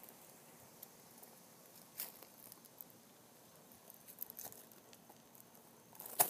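Faint, scattered ticks and scuffs of a dog's paws and claws shifting on a raised fabric dog cot, with a sharper click near the end.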